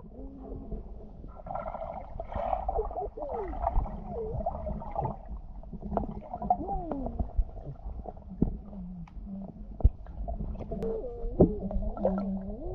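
Pool water heard through an underwater camera: a muffled low rumble of moving water with scattered clicks and knocks. Muffled wavering tones that slide up and down come through the water, most clearly about six seconds in and again near the end.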